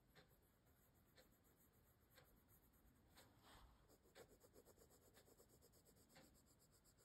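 Very faint scratching of a coloured pencil shading on paper, in light repeated strokes.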